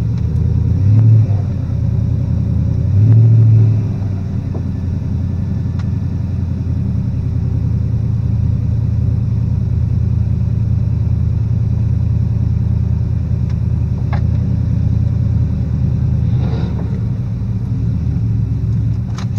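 2003 Ford Crown Victoria's 4.6-litre V8 running at low speed, heard from inside the cabin as a steady low rumble, with two short bursts of throttle in the first few seconds.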